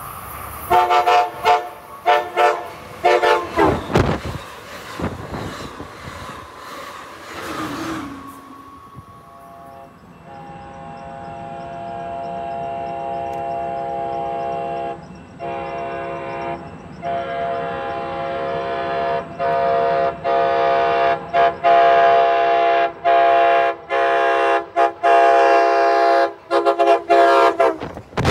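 Amtrak Pacific Surfliner cab car air horns blowing a multi-note chord. First comes a run of short blasts as a train goes by. Then, from about nine seconds in, a second cab car's horn sounds a long blast that breaks into a string of blasts, which grow shorter and choppier toward the end.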